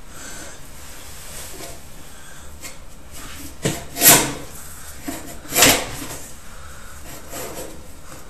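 Drain inspection camera being pushed along a drain on its rod, rubbing and knocking against the pipe over a steady hiss. Twice, about four and five and a half seconds in, a short knock is followed by a louder scraping knock.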